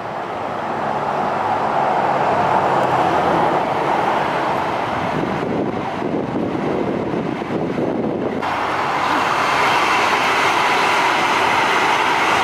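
LA Metro light rail train passing close by: a steady rolling rumble of wheels on rails. It gets louder at the start and turns fuller and brighter about eight seconds in as the cars go by at close range.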